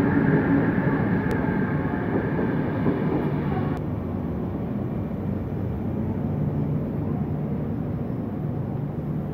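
ÖBB Railjet passenger train rolling slowly into the platform: a steady rumble of wheels on the rails, with a high whine that fades out about four seconds in.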